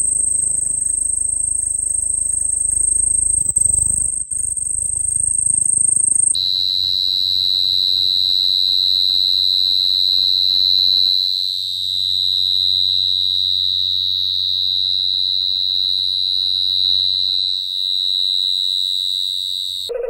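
Male crickets stridulating, raised forewings rubbed together. For about the first six seconds a very high, steady, unbroken trill. It cuts over abruptly to a lower, steady, continuous song from a field cricket calling at the mouth of its burrow.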